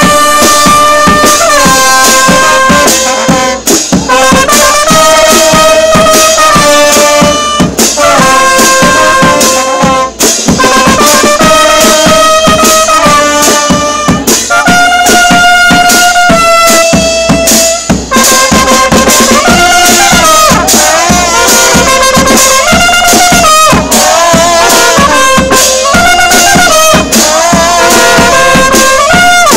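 A charanga street band of saxophones, trombones and trumpets playing a lively tune loudly together over a steady beat.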